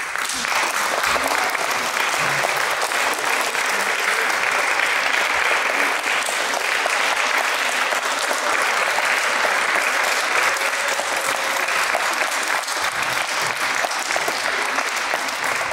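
Audience applauding, the clapping starting all at once and holding steady.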